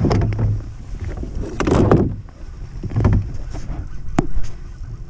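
Choppy water slapping against an aluminium boat's hull in swells every second or so, with wind on the microphone and a sharp knock about four seconds in.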